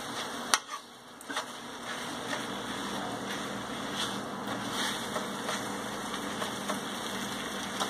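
Salmon fillet and its honey-teriyaki sauce sizzling in a non-stick frying pan, with a sharp click of metal tongs against the pan about half a second in and lighter taps as the fillet is turned. A steady low hum runs under it.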